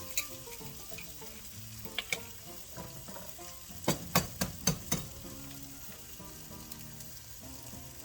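Canned ham frying in a pan with a steady sizzle. There are a couple of single clicks early on, then a quick run of about five sharp knocks about four seconds in.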